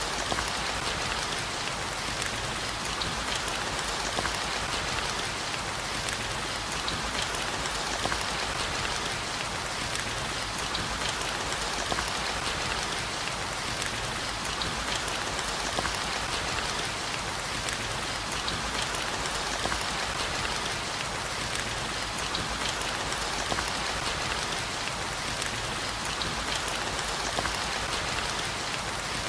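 Steady heavy rain falling on a surface, a dense even hiss with fine drop patter throughout.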